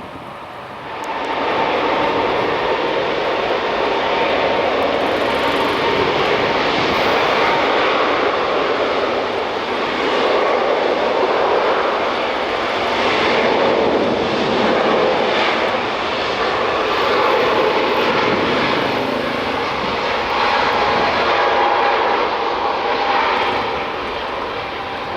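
Jet airliner taking off, its engines at takeoff power: a loud, steady rushing noise that comes up sharply about a second in, with a faint steady whine, swelling and easing in slow waves and dropping back a little near the end.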